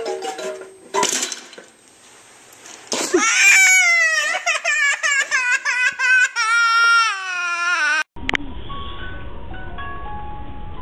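A jack-in-the-box's plucked wind-up tune, a sharp pop about a second in as the jack springs out, then a toddler crying loudly in fright for several seconds. Near the end, after a cut, another jack-in-the-box plays its tune as it is cranked.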